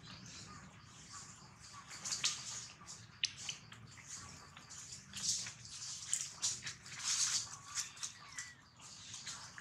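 Dry leaf litter crackling and rustling in irregular short bursts as macaques shift and pick at leaves on the forest floor.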